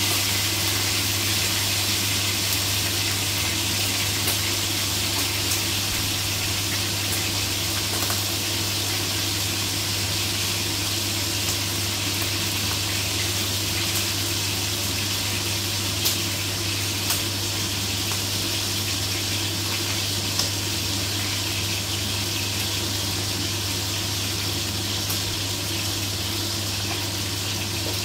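Boiled pork loin steaks frying in oil in a pan, a steady sizzle with a few small pops, over a steady low hum.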